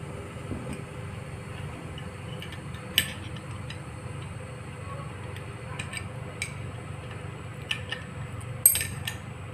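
Scattered sharp metallic clinks and clicks of wrenches and the new milling-tool knife being handled and set in place, the loudest near the end, over a low steady hum.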